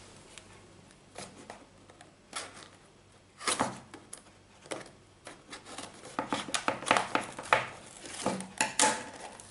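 Scissors snipping and scraping at the sealed end of a small cardboard box, with the box rubbing and rustling as it is handled; sparse at first, with the cuts and scrapes coming thicker in the last few seconds.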